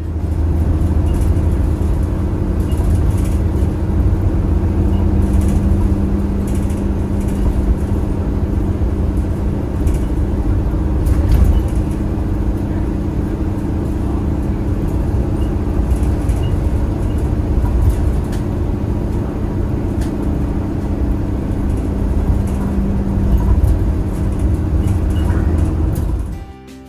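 Route bus driving along the road, heard from inside the cabin: a steady low engine drone and road rumble, with a few light rattles now and then.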